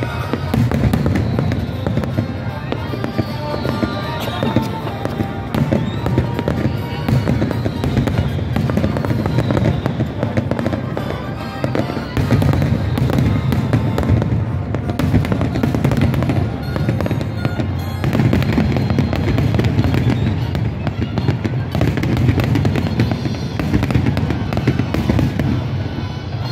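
Fireworks display in full barrage: a dense, unbroken run of booming and crackling bursts, with a few falling whistles in the first dozen seconds.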